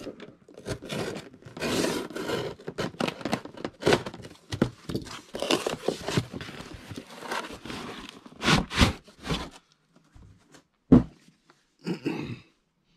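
Small knife slicing packing tape on a cardboard shipping box, then cardboard flaps scraping and rustling as the box is opened, with several louder scrapes toward the end. A sharp knock near the end as a hard plastic pistol case is lifted out.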